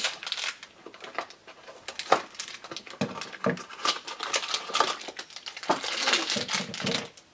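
Cardboard and plastic toy packaging being handled and opened: irregular rustling, crinkling and small clicks.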